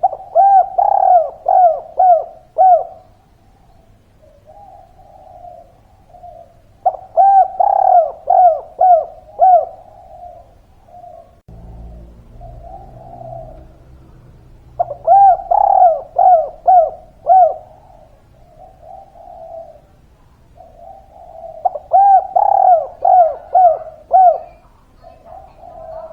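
Spotted dove (tekukur) singing: four phrases, each a run of about five quick coos that rise and fall in pitch, spaced about seven seconds apart, with softer coos between the phrases.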